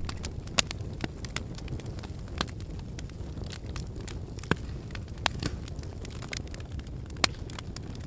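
Wood campfire crackling, with irregular sharp pops, a few louder than the rest, over a low steady rumble.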